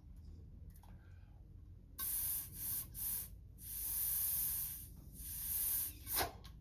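Hissing blasts from a pressurized spray nozzle during a carburetor rebuild, about six short bursts starting some two seconds in, the fourth one the longest.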